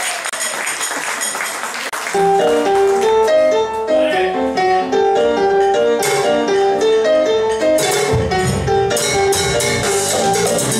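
Live Latin band music: a keyboard comes in about two seconds in playing a repeating riff over congas and hand percussion. A bass line comes in strongly near the end.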